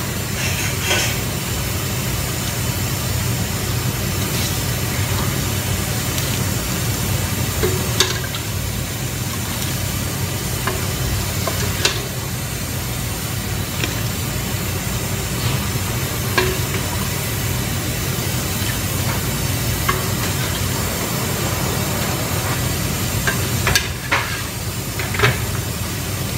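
Metal ladle clinking against a stainless steel cooking pot every few seconds while soup with vegetables is scooped and poured over layered bread. Under it runs a steady hiss and low hum.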